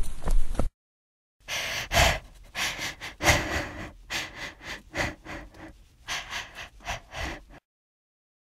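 A person breathing hard, with gasps in uneven breaths that start about a second and a half in and stop near the end.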